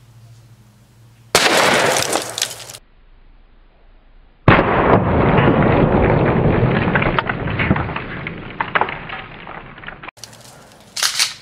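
A 20-gauge Remington 870 youth-model pump shotgun fires one birdshot load: a sharp blast about a second in that dies away over a second and a half. Then the shot plays again slowed down, a deeper boom that starts suddenly and fades over about five seconds, followed by a short sharp burst near the end.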